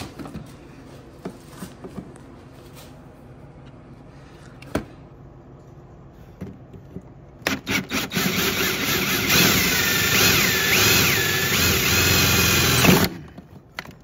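Cordless drill drilling out a pop rivet, its head held with pliers so it won't spin. After several quiet seconds of small clicks, the drill starts in a few short stutters about halfway through, then runs steadily for about five seconds, its whine wavering as the bit bites, and stops suddenly near the end.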